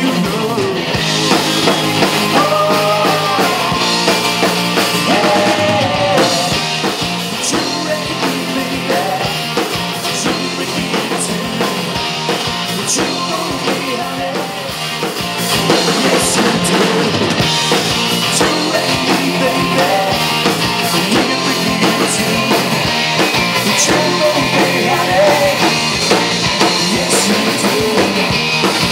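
Live rock band playing amplified electric guitars, bass and drum kit. The music gets louder about halfway through.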